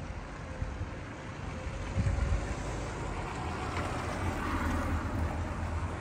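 Town street ambience: traffic rumble with a vehicle passing about four to five seconds in, and wind buffeting the microphone.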